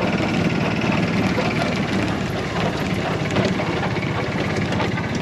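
Golf cart running steadily while driving, with a rapid, even engine pulse and scattered light rattles.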